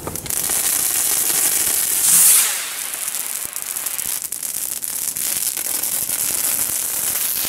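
Fireworks hissing and crackling, with a louder rushing hiss about two seconds in, over a steady crackle that a fire burning nearby adds.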